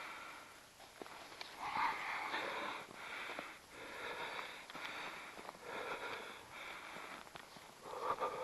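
A person breathing heavily and close to the microphone, a breath in or out about once a second, with a few faint light clicks.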